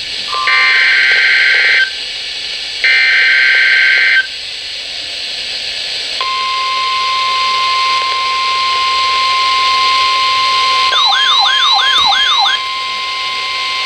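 Emergency Alert System broadcast on NOAA Weather Radio: two bursts of SAME header data, a harsh digital screech about a second each, then after a pause of about two seconds the steady 1050 Hz warning alarm tone begins and holds. Near the end a fast warbling siren-like tone sweeps up and down over it for about a second and a half.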